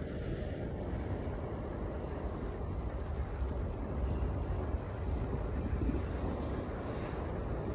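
Steady wind rush on a handheld phone's microphone while riding a Trek DS1 hybrid bicycle along paved road, with the hum of the tyres rolling on the asphalt beneath it.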